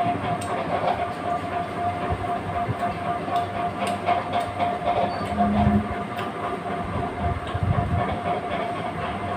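Steady mechanical drone with a constant hum, under faint small clicks and smacks of eating by hand.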